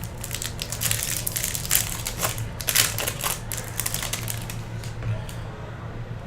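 Chrome trading cards being handled and flicked through by hand: a quick run of light clicks and rustles as card slides over card, over a steady low hum.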